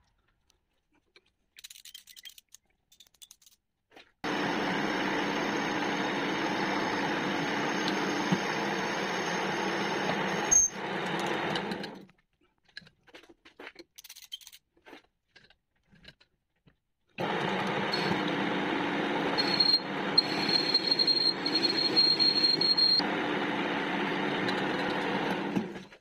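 Metal lathe running in two spells: the motor and gear drive start about four seconds in, run steadily for some eight seconds and wind down, then start again and run until just before the end, with a thin high whistle for a few seconds during the second run. Light handling clicks in the quiet at the start.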